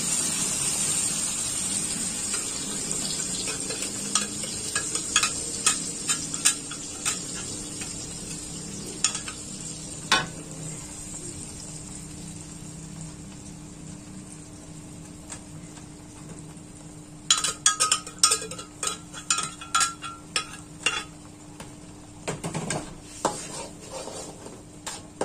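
Blended red chili spice paste hitting hot oil in a wok, sizzling loudly at first and dying down over several seconds. Scattered taps of a metal spatula follow, then, later on, a quick run of ringing metal clinks and scrapes as the spatula works the paste in the wok.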